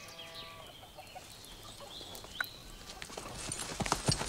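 A chicken clucks briefly at the start, over faint chirping of small birds. From about three seconds in, a growing run of knocks and thuds sets in and gets louder toward the end.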